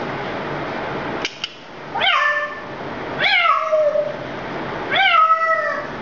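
A steady hiss stops about a second in, followed by two clicks. Then an African grey parrot gives three meow-like calls, each rising and then falling away, mimicking a cat.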